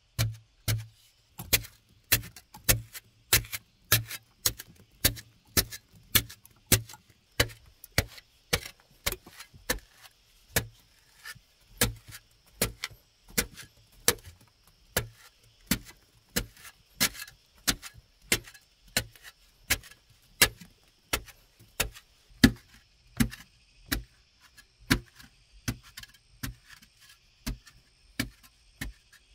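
Short-handled metal digging blade chopping into a hard clay bank, hollowing out a round hole: a steady run of sharp strikes, about one and a half a second.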